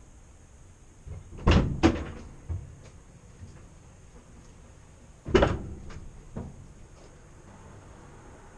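Sharp knocks and clatter, like a door or lid being shut: two hard knocks about a second and a half in, one more about five seconds in, each followed by lighter taps.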